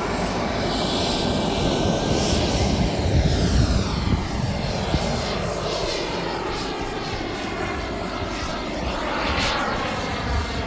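Small gas-turbine engine of a radio-control model jet in flight, its whine and roar sweeping in pitch as it passes, loudest about three to four seconds in.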